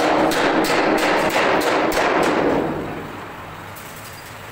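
Large steel sheet rattling and knocking against the rollers as it is rolled into a cylinder on a three-roll plate bending machine: a loud run of metallic knocks, about four a second, that stops about three seconds in.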